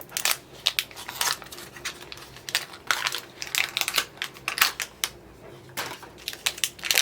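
Irregular crinkling, crackling and clicking of mystery pin packaging being opened and handled by hand, with a lull near the end.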